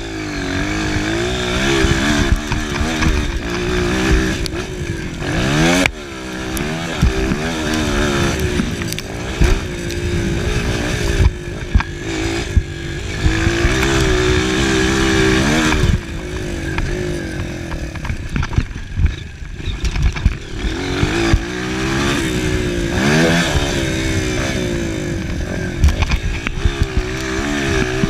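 Honda CRF230's air-cooled single-cylinder four-stroke engine revving up and falling off again and again as the bike is ridden hard over a motocross track, with brief knocks from the bumps. Heard from an on-board camera, with a rush of noise over the engine.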